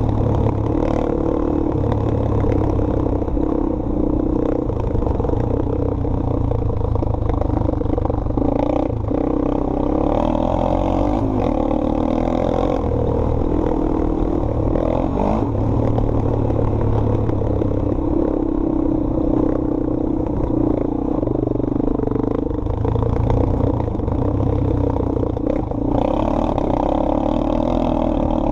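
Sport quad (ATV) engine running under hard riding, its pitch rising and falling as the throttle opens and closes, heard through a helmet-mounted camera.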